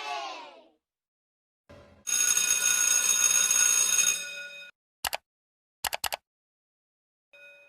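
A bell ringing steadily for about two and a half seconds, in the manner of an old electric telephone bell, then cutting off; a single click follows, then three quick clicks. A cheering crowd fades out at the very start.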